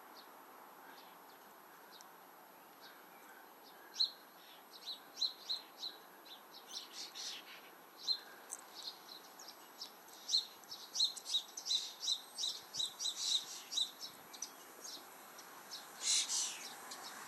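Sparrows chirping: a quick run of short, sharp chirps starting about four seconds in, with a louder burst of chirping near the end.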